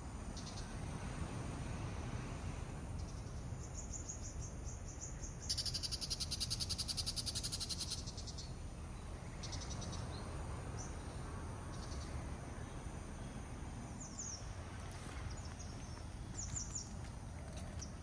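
Outdoor insect chorus: a loud, fast, evenly pulsed insect buzz lasting about two and a half seconds, starting about five seconds in, with a fainter pulsed call before it and short high chirps near the end, over a low steady rumble.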